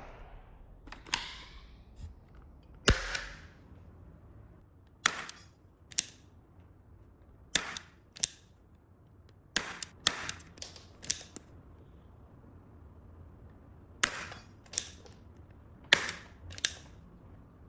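Toy revolver being fired: a series of about fifteen sharp snaps with short tails, many coming in pairs half a second to a second apart.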